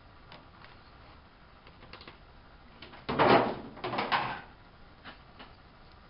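Hands handling a trading-card collection box's packaging to take out a collector's coin: a few light clicks, then a loud burst of rustling and scraping about three seconds in and another shortly after.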